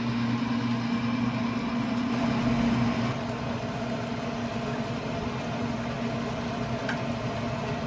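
Traeger pellet grill running during its startup: a steady electric motor hum from its fan, a little louder for the first three seconds.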